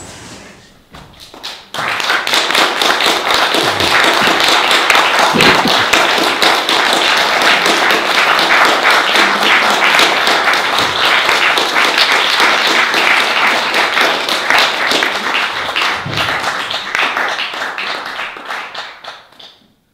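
Audience applauding: the clapping swells in about two seconds in, holds steady and loud, and dies away near the end.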